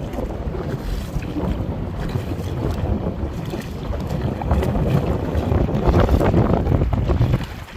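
Wind buffeting the microphone: a loud, rumbling noise that swells after the middle and drops off suddenly near the end.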